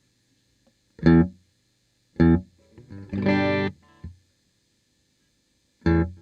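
Electric guitar played through a homemade Rebote Delay 2.5 pedal: three short chord stabs and one chord held for under a second. A faint low hum sits underneath.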